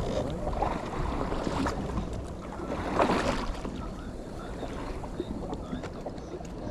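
A fishing boat at sea: a steady low engine hum under wind and water noise, with a louder rush about three seconds in.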